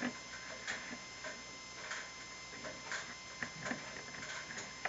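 Small plastic toy figures clicking and tapping against the plastic shelves of a toy fridge as they are set in place: light, irregular clicks with a little handling rustle.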